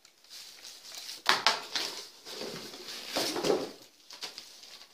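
Plastic packaging crinkling and rustling as small parts are unpacked by hand, with two louder rustles, one just over a second in and one after about three seconds.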